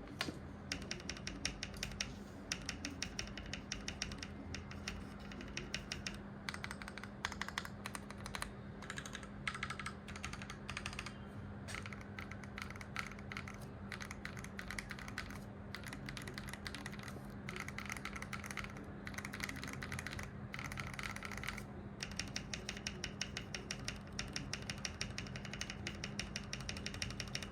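Mechanical keyboard with lubed Akko V3 Cream Yellow linear switches, on a gasket-mounted polycarbonate board with a PE foam mod, being typed on in fast runs of keystrokes with short pauses between them.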